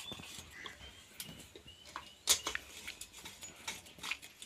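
Scattered metallic clicks and clinks of a T-handle wrench on the cylinder-head nuts of a Hero Honda 100 cc engine as they are tightened, the sharpest about two seconds in.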